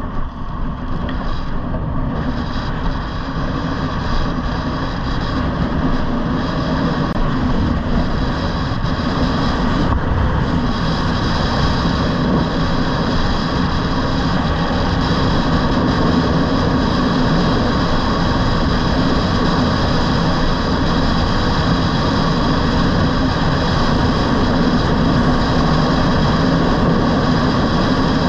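Electric scooter ride at speed: steady wind and road noise on the action camera's microphone, with thin steady high whining tones over it, growing gradually louder.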